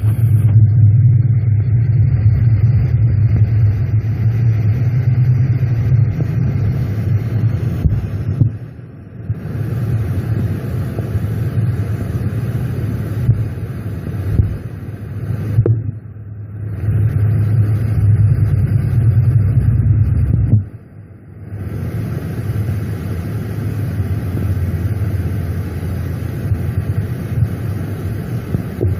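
Steady low droning rumble picked up from a borehole drilled about 10 m into bedrock, which the uploader takes for underground tunnel-digging machinery. It dips briefly three times, about a third of the way in, near the middle and about two-thirds of the way in.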